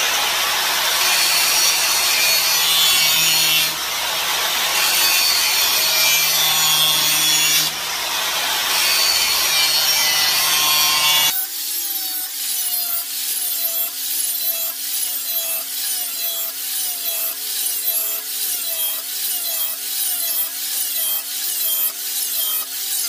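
Corded handheld electric grinder running and grinding the dull edge of a steel Dixie Chopper mower blade. About halfway through the sound changes abruptly, and from then on the grinder's pitch rises and falls about twice a second as it is worked back and forth along the edge.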